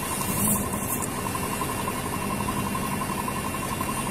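A patrol truck's engine idling steadily, with a faint rapid pulsing running through the hum. There is a brief rustle about half a second in.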